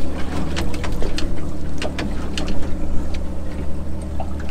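Boat's outboard motor idling with a steady low hum, with scattered light knocks and clicks over it.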